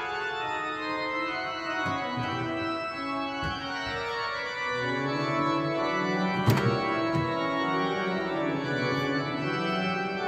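Cathedral pipe organ playing sustained chords, with deeper bass notes joining about halfway through. A single sharp knock sounds partway through, above the music.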